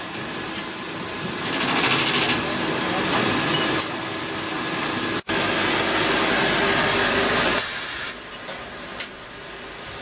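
Automatic lock-cylinder sanding machine running, its abrasive belts grinding the ends of brass cylinder housings: a steady rasping machine noise. It breaks off for an instant about five seconds in and runs quieter near the end.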